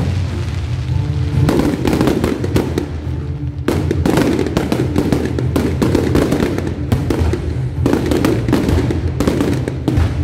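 Aerial fireworks bursting and crackling in three dense spells of rapid sharp reports, over music with steady, held low tones.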